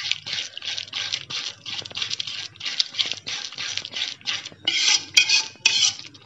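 Metal spoon stirring and scraping a thick curd masala with peas around a metal kadai in quick repeated strokes, a little louder about three-quarters of the way through. It is stirred without pause while the curd cooks into the masala.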